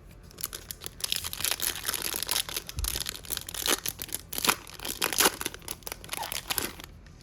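Foil wrapper of a hockey trading-card pack crinkling and tearing as it is handled and ripped open, a dense irregular crackle that starts about a second in and stops shortly before the end.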